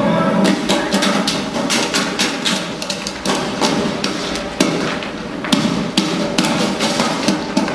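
Children's feet stomping and running on a wooden stage floor: many sharp thuds at an uneven pace, over a low steady hum.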